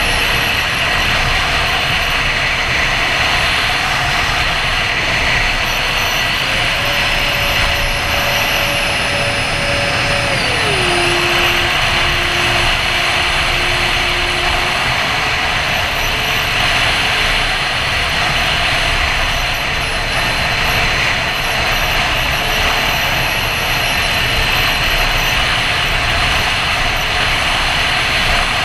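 Twin electric ducted fans of a Freewing A-10 RC jet running in flight over a steady rushing of air. The fan pitch rises slightly, then drops noticeably about ten seconds in as the throttle is eased back.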